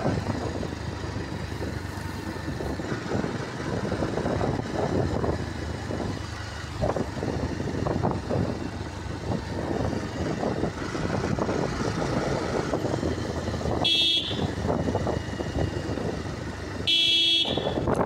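Motorcycle riding along a road, its engine and wind noise making a steady rough rumble on the helmet microphone. A vehicle horn beeps twice near the end, the second beep a little longer.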